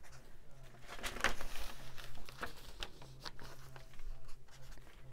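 Paper journal pages being turned and handled: soft rustling with a few light taps and clicks.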